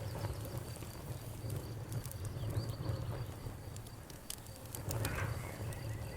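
Wood fire crackling, with scattered sharp pops over a steady low rumble; a cluster of pops comes about five seconds in. A faint, steady high-pitched trill runs underneath.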